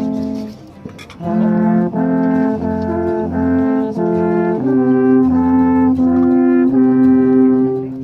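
A trio of alphorns playing together in harmony, sustaining long notes. The music pauses briefly about a second in, then resumes with notes changing every half-second or so, and the notes are held longer in the second half.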